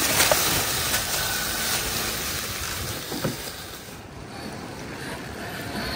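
Axial SCX6 1/6-scale electric RC crawler truck driving through dry leaf litter and shallow creek water: a steady rush of rustling leaves and water over a faint whine from its motor and gears, with a few small knocks. The noise eases a little about four seconds in.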